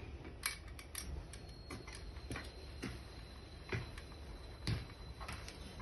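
Irregular light metallic clicks and taps from hand tools and steel seat-slider rails being handled and fitted onto a car seat swivel base, with a faint steady high whine underneath.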